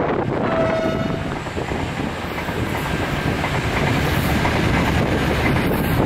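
Train passing, a steady loud rumble and rattle of wheels on the rails, with a brief high tone lasting under a second about half a second in.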